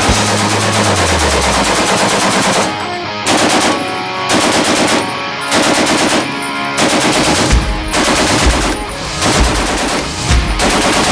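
Belt-fed machine gun firing fully automatic: continuous fire at first, then a string of short bursts about one a second, each about half a second long.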